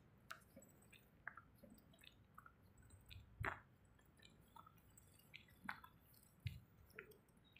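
Near silence with faint scattered ticks, roughly one a second, the strongest about halfway through.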